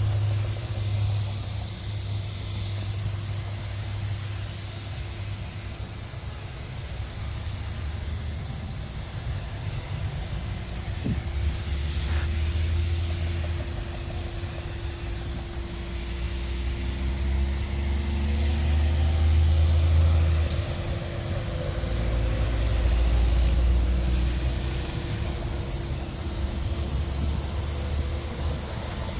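Paint spray gun hissing with compressed air as clear coat is sprayed onto a car bumper, the hiss dipping and returning over repeated passes. A low hum runs underneath.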